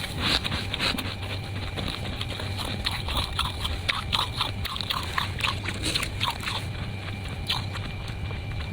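Fluffy freezer frost crunching in many quick, irregular crunches.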